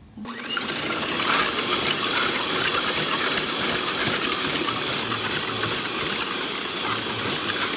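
Electric hand mixer switching on just after the start and running steadily, its wire beaters whisking egg whites in a stainless steel bowl, with scattered clicks throughout. The whites are at the frothy first stage of whipping.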